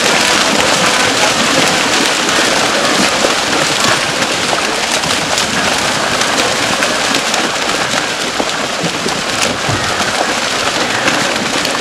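Many large fish thrashing and leaping at the water's surface inside an encircling fishing net: a dense, steady mass of splashes.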